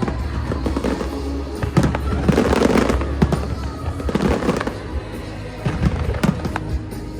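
Fireworks going off: repeated sharp bangs with dense crackling clusters, heaviest a couple of seconds in and again past the middle, over loud show music with a steady low bass.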